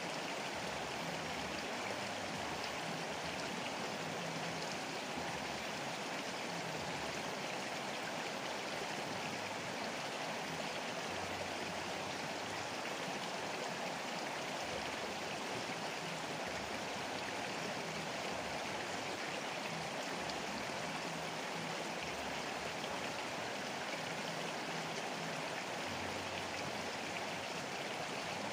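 River water rushing steadily over a rippling, fast-flowing stretch.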